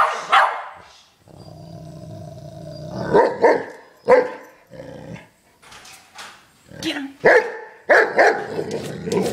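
Great Pyrenees barking at a centipede in short sharp bursts. Between about one and three seconds in there is a steadier low growl, and the barks return in clusters later on.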